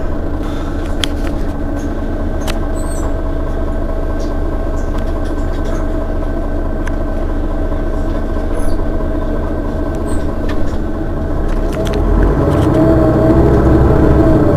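Mercedes-Benz Citaro city bus's rear-mounted engine idling steadily while the bus stands still, with a few faint clicks. About twelve seconds in, the engine grows louder.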